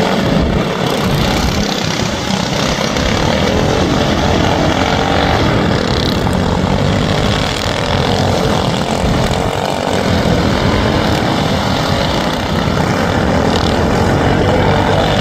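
Racing lawnmower engines running hard around a short track, a steady loud engine drone whose pitch wavers up and down.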